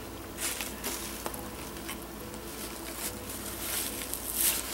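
Close-up chewing of a mouthful of fried chicken sandwich, with short crunching crackles every second or so and a stronger rustle near the end as a paper napkin is pressed to the mouth.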